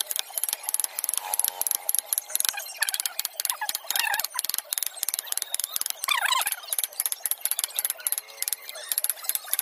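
Wooden mallet tapping a steel wood chisel in quick, light strokes, several a second, as the chisel cuts a carved pattern into a wooden board.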